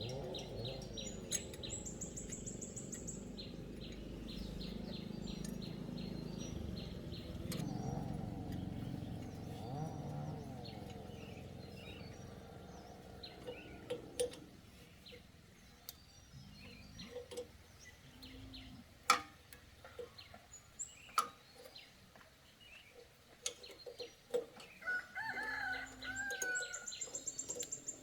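Farmyard sounds: chickens and small birds calling, with rapid repeated chirping in the first half and a few sharp knocks in the second half.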